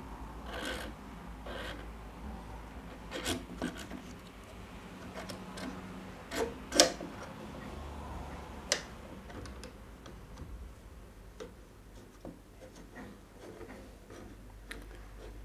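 Steel guide rods and a lead screw being slid by hand through a plastic CNC axis carriage during assembly: irregular rubbing and scraping with scattered clicks and knocks, two of them sharper near the middle.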